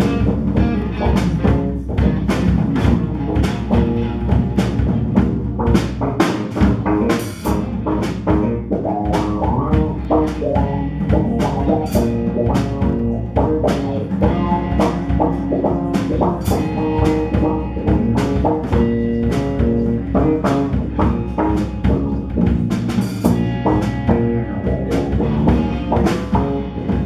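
Live rock band playing an instrumental jam on two electric guitars, electric bass and drum kit, with drum hits on a steady beat throughout.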